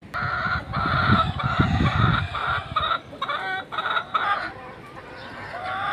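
Chickens cackling in a rapid run of short, loud clucks, the agitated calling that hens give when they sense danger, with a low rumble under the first two seconds. A longer drawn-out call comes near the end.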